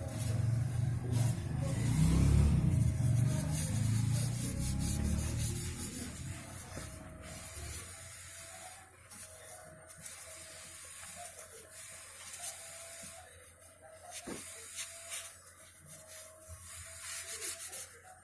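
Cloth rag wiping seeping engine oil off the oil pan around the drain plug hole. There is a low rumble over the first several seconds, then fainter rubbing.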